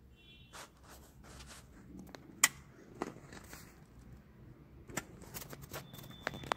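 Handling noise from the recording phone: scattered clicks and light knocks, the sharpest about two and a half seconds in and a quick cluster near the end.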